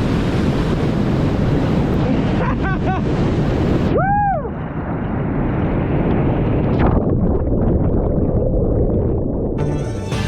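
Waterfall pouring into a churning plunge pool: a loud, steady rush of water. About four seconds in there is a short call that rises and falls in pitch.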